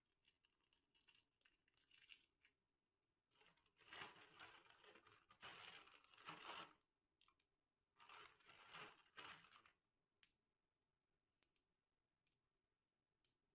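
Snack packets being torn open and crinkled, in a few bursts of tearing and rustling, followed by scattered light clicks near the end.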